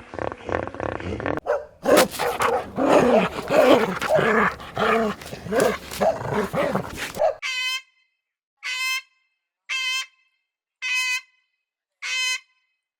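Animal calls: a dense run of loud, overlapping calls for about seven seconds, then after an abrupt cut, five short calls about a second apart with silence between them.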